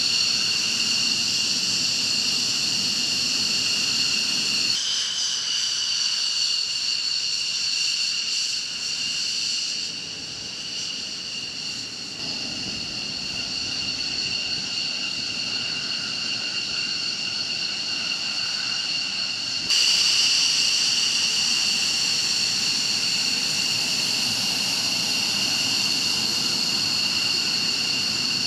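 Jet engine whining steadily, a high, multi-toned turbine whine over a low rush. The whine changes abruptly twice, about five seconds in and again near twenty seconds, as if cut between shots.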